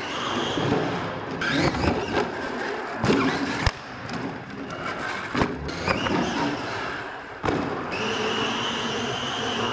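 Radio-controlled solid-axle monster truck tumbling and driving on a concrete floor: several sharp knocks and clatters as it bangs over the ramp and onto its side, then a steady high motor whine near the end as it drives off on its wheels.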